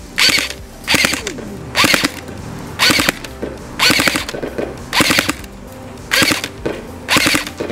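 Tokyo Marui MP5SD6 airsoft electric gun (AEG) firing short bursts of BBs, about eight of them, roughly one a second. Each burst is a quick string of a few clacking shots.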